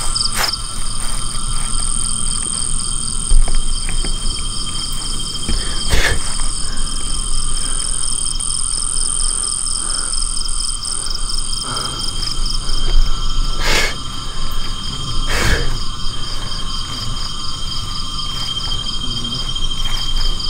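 Chorus of tropical insects such as crickets, several steady trills at different pitches, one pulsing rapidly. A few sharp clicks or knocks sound about six seconds in and twice more later on.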